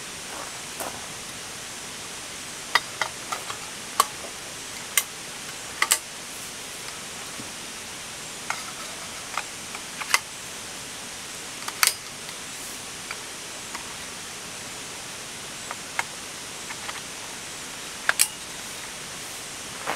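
Scattered sharp clicks and knocks as camping gear is handled and a long tarp pole is pulled out of the back of a small car, over a steady high hiss.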